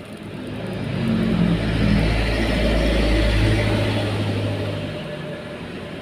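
A motor vehicle passing by: its engine hum grows louder over the first second or two, holds, then fades away after about five seconds.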